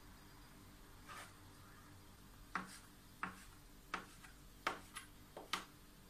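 Kitchen knife cutting cheese into cubes on a plastic cutting board: a soft scrape, then from about halfway a run of short, sharp taps of the blade hitting the board, roughly two a second.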